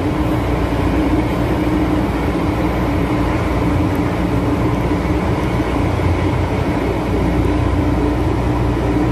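MTR M-Train (Tsuen Wan line) running through a tunnel, heard from inside the passenger car: a steady rumble of wheels on rail with a steady hum over it.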